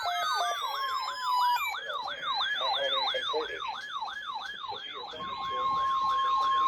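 Electronic siren yelping, a fast rise-and-fall wail repeating about four times a second. About five seconds in, a steady tone near 1 kHz joins it, matching NOAA Weather Radio's warning alarm tone.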